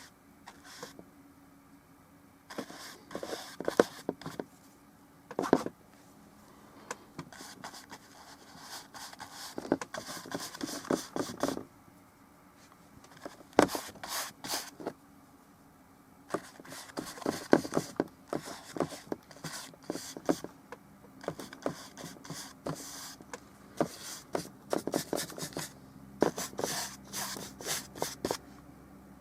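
Paintbrush working oil paint on a small painting surface: irregular bursts of short scratchy strokes and taps, separated by brief pauses.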